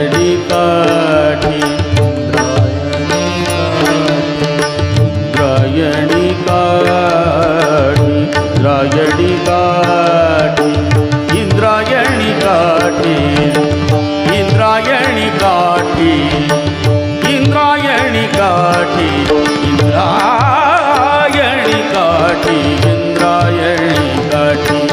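Male singer performing a Marathi devotional abhang in classical style, with long ornamented gliding runs, over a steady drone and a running tabla beat.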